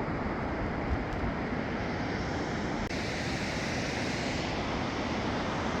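Fast-flowing river rushing: a steady noise of running water that shifts slightly about three seconds in.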